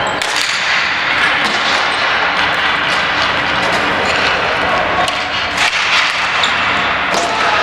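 Ball hockey game play: a steady noise of play with many sharp knocks scattered through it, from sticks and the ball striking each other and the boards.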